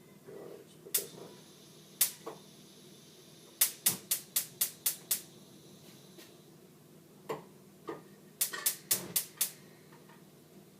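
A series of sharp clicks and taps: a few single ones, then a quick run of about seven, then another cluster near the end.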